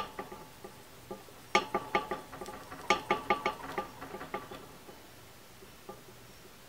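Colored pencil scribbling on paper in quick back-and-forth strokes: two short runs of scratchy taps, about five a second, that die away after about four and a half seconds.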